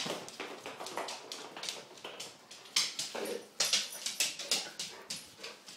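A dog scrambling after a thrown ball, its claws clicking and skidding on a slippery floor. A short whimper comes about three seconds in.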